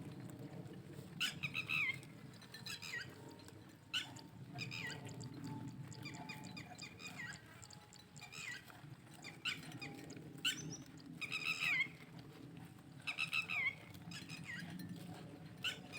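Short, high-pitched animal calls, each falling in pitch, repeated every second or two over a steady low hum.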